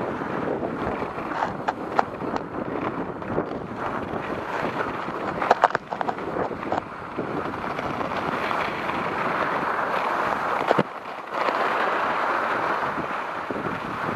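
Wind rushing over the camera microphone and skis hissing and scraping on packed snow during a downhill run, with a few sharp knocks, a cluster of them about halfway through and a strong one a few seconds before the end.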